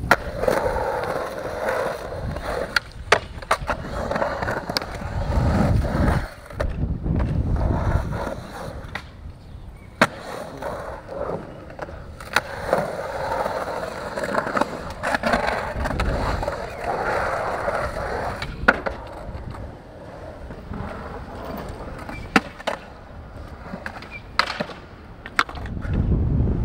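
Skateboard wheels rolling over concrete ramps, the rolling noise swelling and fading with each run. Several sharp clacks of the board striking the concrete are spread through it.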